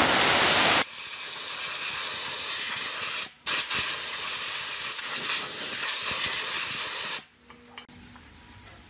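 Compressed-air blow gun hissing as it is blown across a circuit board: loudest for the first second, then steadier, with a short break about three and a half seconds in, and a second long blast that cuts off about seven seconds in.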